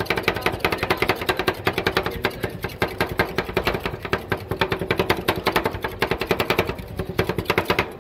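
Two steel spatulas rapidly chopping and mixing ice cream on a steel cold plate, a fast clatter of metal-on-metal strikes, several a second, with a steady hum underneath that fades near the end.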